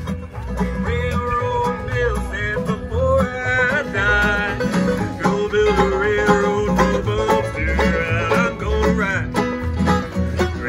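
Upbeat bluegrass music led by banjo, with guitar and a steady bass beat.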